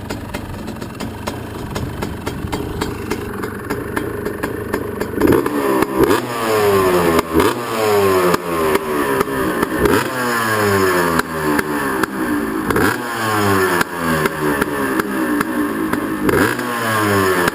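2001 KTM 250 SX two-stroke motocross engine, freshly rebuilt with new piston, bearings and connecting rod, idling for about five seconds, then revved by sharp throttle blips again and again, each rev climbing fast and falling away.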